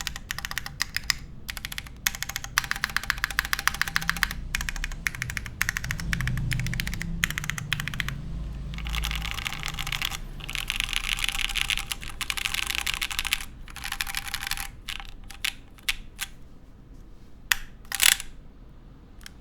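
Typing on an Axiom Studios Typ60 mechanical keyboard (O-ring mount, carbon fiber plate, lubed IV Works Darkmoon switches, GMK keycaps): fast runs of keystrokes with short pauses between them, thinning to scattered single presses near the end, with one louder stroke shortly before the end.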